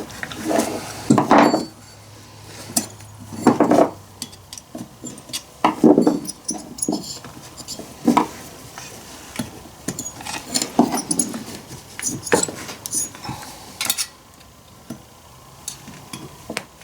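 Small metal chainsaw parts clinking and scraping as the piston, with a ring that will not go in, is worked into the cylinder by hand, in short irregular bursts.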